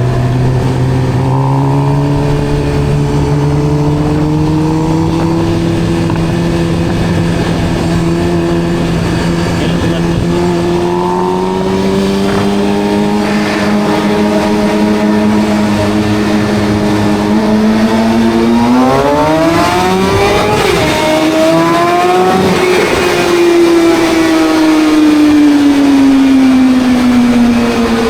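Suzuki GSX-R 750 inline-four motorcycle exhaust in a road tunnel: the engine note climbs slowly while riding, rises sharply as the throttle is opened about two-thirds of the way through, then eases back down.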